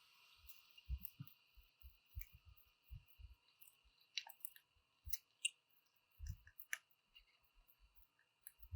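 Faint, irregular plastic clicks and soft taps of hands working on a NuPhy Air75 low-profile mechanical keyboard and its keycaps, over a faint steady high whine.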